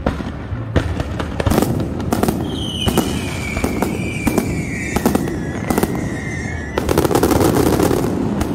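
Aerial fireworks shells bursting in a rapid series of bangs and crackles. In the middle a high whistle slides slowly down in pitch for about four seconds, and near the end a dense run of crackling bursts comes in.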